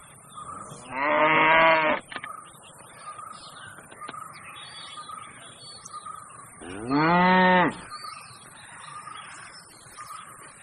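A bull mooing twice, each call about a second long and some five seconds apart; the second call rises and then falls in pitch.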